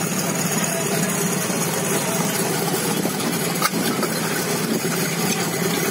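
Portable fire pump's engine running steadily at idle close by, with a single knock about two-thirds of the way through as the team works at the pump.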